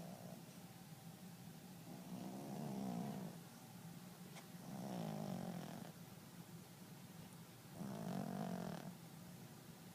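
Chihuahua snoring in its sleep: three snores about three seconds apart, each lasting around a second.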